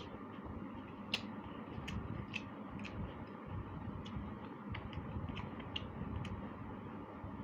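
Eating sounds: a dozen or so short, irregular mouth clicks and smacks while chewing, over a steady low background hum.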